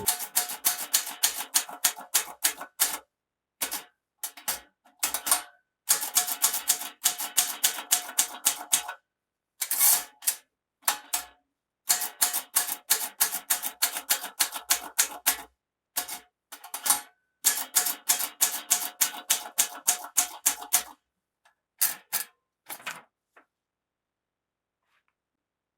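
Keys of a 1950s Soviet manual typewriter being struck in quick runs of several strokes a second, with short pauses between runs. The typing thins out and stops a little over twenty seconds in.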